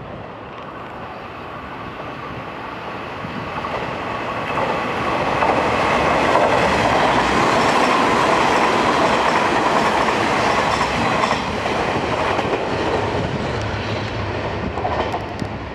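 Hanshin 8000 series electric train passing on the rails. Its running noise builds over the first five seconds or so, is loudest in the middle, and eases slightly toward the end.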